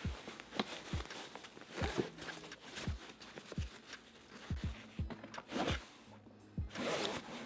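Background music with a deep kick-drum beat and bass notes, under rustling and scuffing of fabric as an infant car seat's padded cover and insert are pressed and handled.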